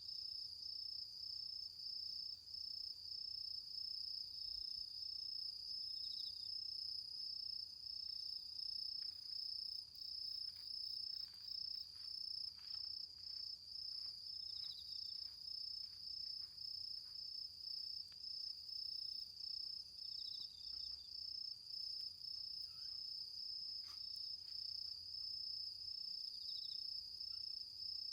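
Autumn insects singing: one steady, unbroken high-pitched trill, with another insect adding a short chirp every few seconds. A few faint crackles and ticks from the smouldering bonfire embers come through in the middle and near the end.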